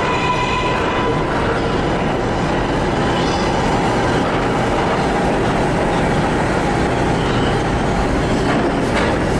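Kawasaki R143 subway train pulling out of the station and past the platform: a steady rumble of steel wheels on the rails and the cars running by, with a few clicks over rail joints near the end.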